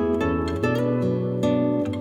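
Background music: a gentle instrumental on a plucked string instrument, a new note or chord every fraction of a second, each left to ring and fade.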